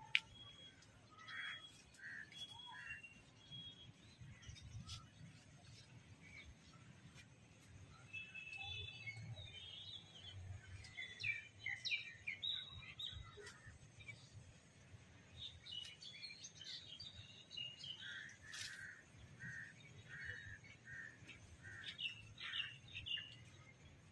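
Small birds chirping and calling in short scattered phrases, with one run of about six evenly spaced notes later on. A single sharp click comes right at the start.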